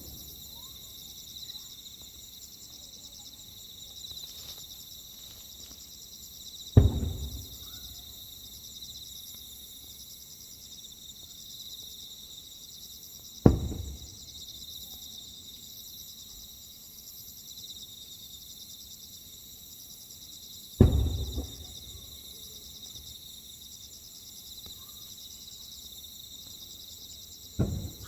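Aerial firework shells bursting one at a time, four loud booms about seven seconds apart, each with a short fading echo. A steady chorus of chirring insects such as crickets runs underneath.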